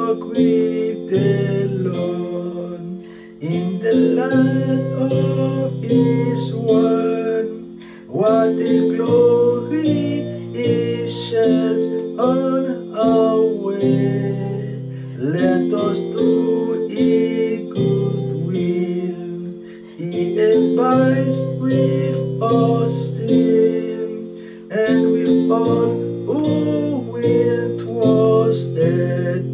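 Acoustic guitar music, plucked and strummed chords, accompanying a gospel hymn.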